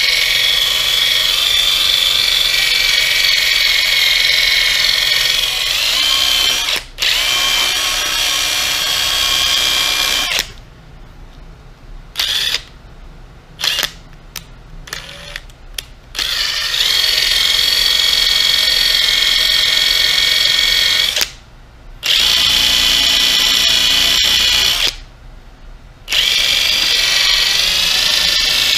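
Handheld power tool spinning a buffing pad against a clear plastic gauge cluster lens, polishing it. It runs with a steady high whine in long spells, stopping for a couple of seconds about a third of the way in, blipping briefly a few times, then running again with two short pauses in the second half.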